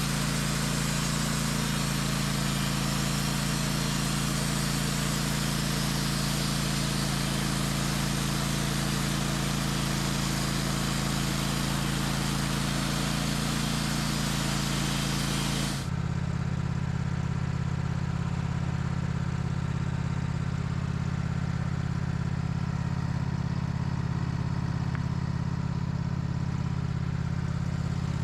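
Band sawmill with a 10-degree blade cutting through an oak log: a steady motor hum under a loud, even hiss from the blade in the wood. About sixteen seconds in the cutting hiss stops suddenly as the cut ends, and the motor keeps running.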